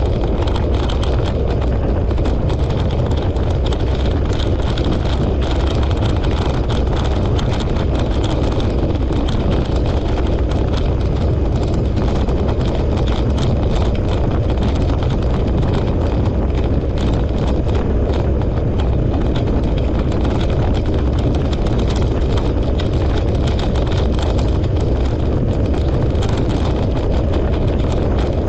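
Dryland racing rig rolling fast over a dirt trail behind a four-dog team: a loud, steady rumble and rattle of the wheels and frame on the ground.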